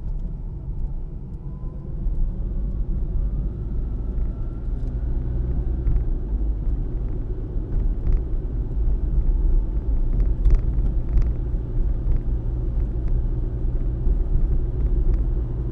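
Steady low rumble of a car being driven, heard from inside the cabin: engine and tyre noise on the road, with a few faint clicks.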